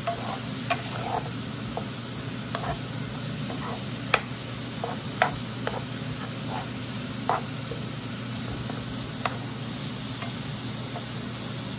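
Sliced bell peppers and red onions sizzling steadily in a pan, stirred with a spatula that knocks and scrapes against the pan now and then, sharpest about four, five and seven seconds in.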